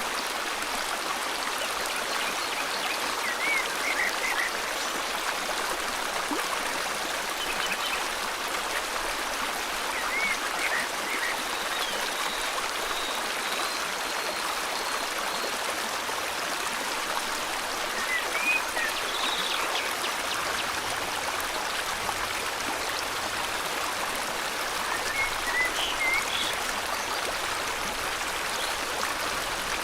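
Steady rush of flowing river water, with short high bird chirps breaking in over it every few seconds.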